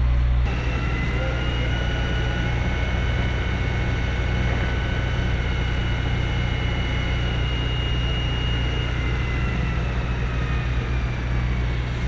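Steady engine noise with a high whine that falls slightly in pitch near the end.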